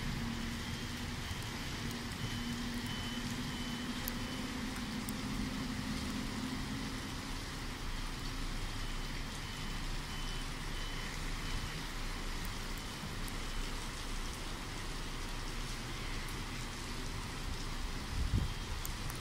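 Steady rain of a heavy downpour. A low hum runs under it for the first several seconds, a faint high beep repeats on and off, and there is a single thump near the end.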